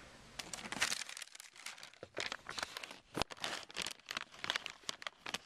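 Irregular crinkling and rustling with small clicks as hands rummage for and handle small parts, with one sharper knock about three seconds in.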